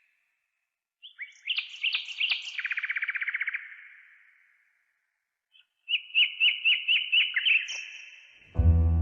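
A songbird singing two phrases: the first a few sharp notes running into a fast trill, the second a string of about eight quick, repeated downward-sliding notes.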